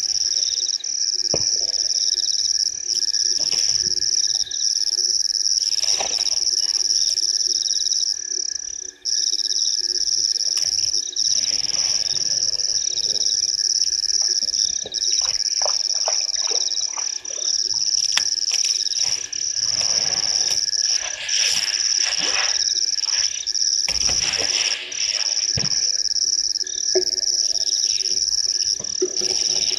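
Night chorus of frogs and insects at a waterhole: a loud, steady high-pitched chirring with brief gaps every second or two and scattered croaks and chirps, with a few louder rustling noises in the middle.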